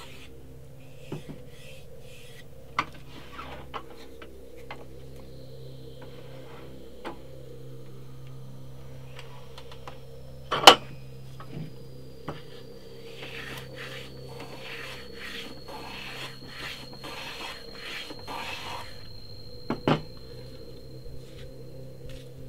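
Hand plane being worked over wood, with scattered clicks and knocks as the plane and workpiece are handled, then a run of shaving strokes about one a second in the second half. A single sharp knock about halfway through is the loudest sound, and a steady low hum runs underneath.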